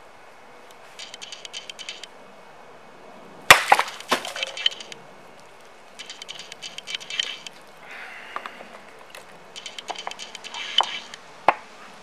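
A heavy bowie knife made from a truck leaf spring chops through a full drinks carton and strikes a wooden table. The loudest moment is one sharp hit about a third of the way in, with a short clatter right after. There are bursts of rustling, and near the end a second sharp hit as the blade is stabbed into the wooden tabletop.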